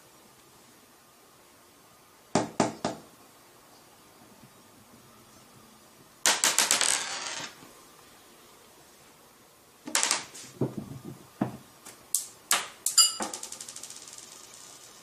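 A marble clattering on a hard floor in several bursts: a few quick clicks, a longer rattle as it rolls, more scattered clicks, then near the end a run of bounces that come faster and faster as it settles.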